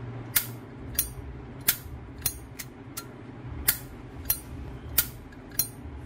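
Brass-cased Zippo lighter's hinged lid being flipped open and snapped shut again and again: about ten sharp metallic clicks, roughly two a second.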